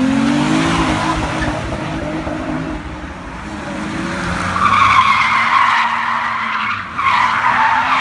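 A car's engine revving hard as it drifts, its pitch rising and falling. About halfway through, the tyres start squealing loudly, break off for a moment about seven seconds in, and then squeal again.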